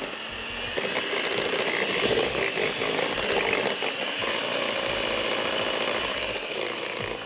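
Anex electric hand mixer running steadily, its twin beaters churning banana bread batter in a glass bowl.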